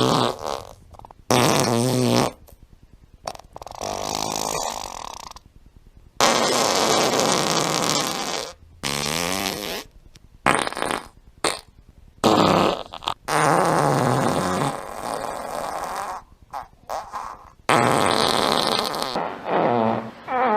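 A string of fart sound effects, one after another with short pauses. There are about a dozen or more, lasting from a fraction of a second to over two seconds: some are buzzy and pitched, others breathy and hissing.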